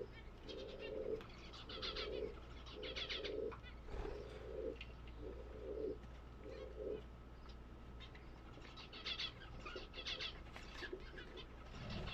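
Pigeons cooing: a run of about eight low coos, roughly one a second, that stops about seven seconds in. Clusters of higher-pitched bird chirps come in between, and again after the cooing stops.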